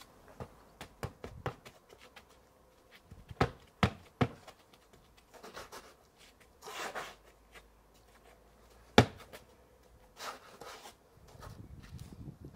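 Spade knocking and scraping in sand and broken mortar at the edge of lifted patio slabs: a run of sharp knocks, with the loudest about nine seconds in, and two short scrapes, one near the middle and one about ten seconds in.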